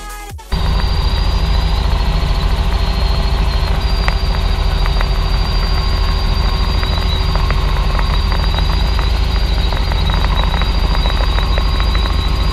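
Robinson R66 helicopter cabin noise in flight: a loud, steady low rumble from the rotors with a high, steady whine from the turbine and drivetrain over it.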